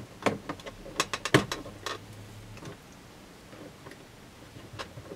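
Plastic interior door trim of a 2002 Mitsubishi Pajero being prised and pulled loose around the door handle: a series of sharp plastic clicks and knocks, thickest between about one and two seconds in, with a few more near the end.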